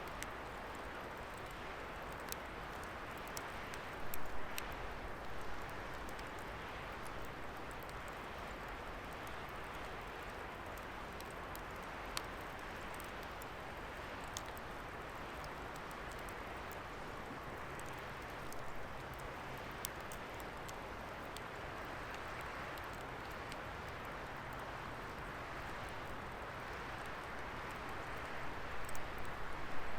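Wood fire burning with a steady rush of flame, scattered sharp pops and crackles. It gets louder and choppier about four seconds in and again near the end.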